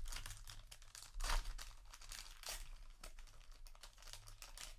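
Foil trading-card booster pack wrapper crinkling as it is handled and torn open, in a few short rustles, the loudest about a second in.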